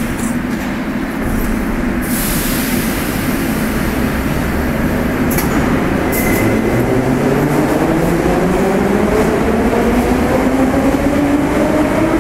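81-717.6K metro train pulling out along the platform, its wheels rumbling and hissing on the rails with a couple of clicks. From about five seconds in, a traction-motor whine rises steadily in pitch as the train gathers speed.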